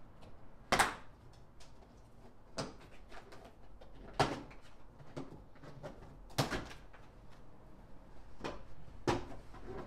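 A 2007 Chevy Silverado's plastic door sill trim plate is pried off, its retaining clips popping loose with a series of irregular sharp snaps and clicks. The sharpest snap comes about a second in.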